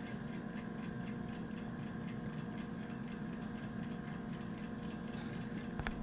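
Clockwork of an antique bank time lock ticking, a quick, even ticking over a faint steady hum. One sharper click comes near the end.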